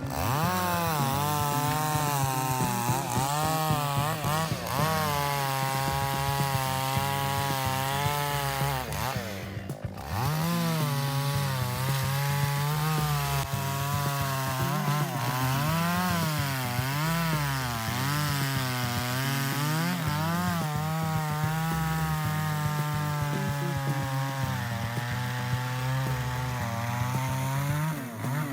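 A two-stroke chainsaw running hard while cutting through wood. Its engine pitch keeps dipping and rising as it works, and the sound drops out briefly about nine seconds in.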